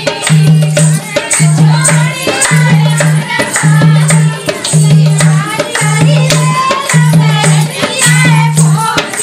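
Dehati (rural North Indian) folk dance song: a voice singing over a shaker rattle and a low note that repeats about once a second.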